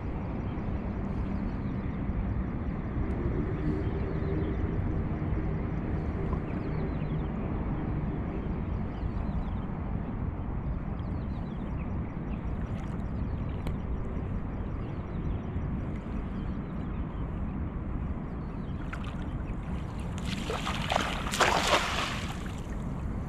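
A cast net hitting shallow water about twenty seconds in: its weighted rim slaps down in a ring of splashes for a second or two, the loudest sound here. Before that, a steady low rumble of wind and water.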